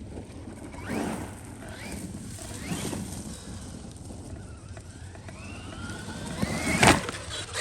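Traxxas Maxx RC monster truck's electric motor and drivetrain whining, the pitch rising and falling with bursts of throttle and braking. A loud knock comes near the end.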